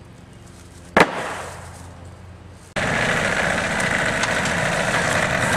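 A sawn white ash slab set down onto a stack of boards with one loud wooden clack about a second in. Then, from a sudden start near the middle, a green-and-yellow compact loader tractor's engine running steadily.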